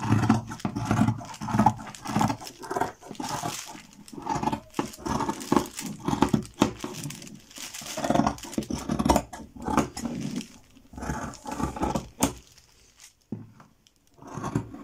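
Fabric shears cutting through thick herringbone woven fabric in a long run of crunching snips, thinning out near the end.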